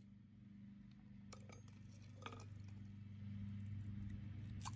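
Faint clicks and gritty scrapes of stone as a hollow geode, just cracked along its crevice, is handled and pulled apart by hand, with a sharper click near the end. A steady low hum runs underneath.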